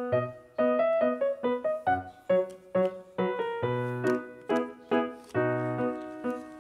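Background piano music: a melody of struck keyboard notes over low bass notes.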